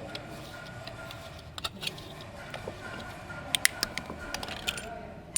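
Pipe fittings being handled during pipe assembly: a few sharp clicks and knocks, the loudest cluster about three and a half seconds in.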